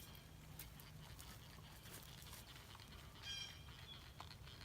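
Near silence, with a few faint clicks and a brief, high animal call about three seconds in.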